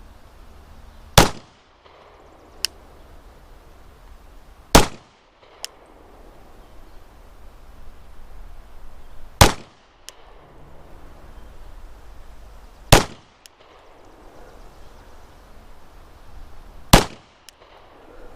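Five single shots from a 9mm Glock 19 pistol, fired slowly about three to four seconds apart, each followed by a fainter short click.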